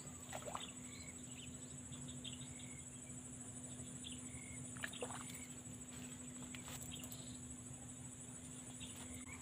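Steady, high-pitched insect chorus with a fast pulsing trill, with a few short bird chirps over it and some faint clicks.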